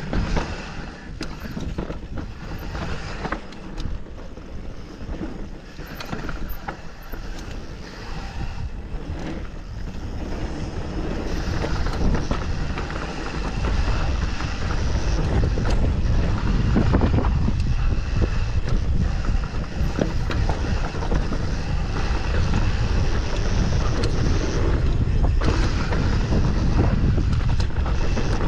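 A mountain bike ridden down an enduro trail: wind buffeting the microphone over tyre noise, with frequent knocks and rattles from the bike over rough ground. The low wind rumble grows much louder about halfway through.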